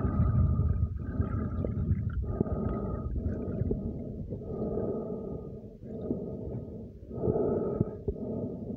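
Muffled underwater noise picked up by a submerged phone moving through lake water, swelling and dropping roughly once a second.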